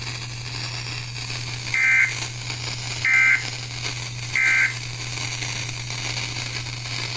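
Emergency Alert System end-of-message data bursts: three short bursts of two-tone digital screeching, about a second and a quarter apart, signalling the end of the tornado warning. A steady low electrical hum runs underneath.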